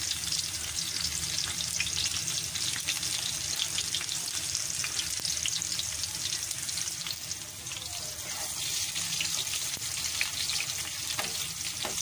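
Sliced onions sizzling and crackling in hot ghee in a steel pan, a steady frying hiss of many small pops. They are being fried toward light pink as the base of a tarka.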